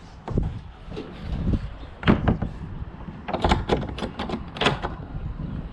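Wind rumbling on the microphone, with a sharp clatter about two seconds in and a quick run of clattering knocks near the end.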